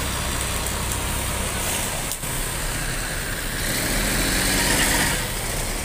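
Coach bus engine running as the bus pulls away and rolls slowly past, growing a little louder about four seconds in.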